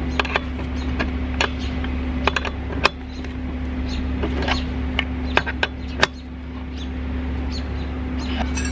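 Metal clicks and clinks of an open-end wrench being worked on a fuel line nut to snug it tight: a dozen or so sharp, uneven ticks, the loudest about three seconds in, over a steady low hum.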